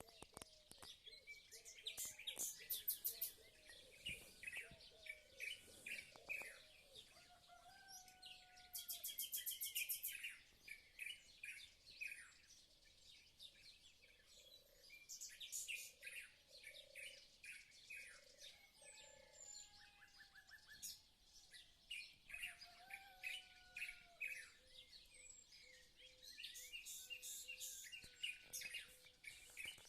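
Several birds singing: many short high chirps, with a fast trill twice and a few lower whistled notes in between.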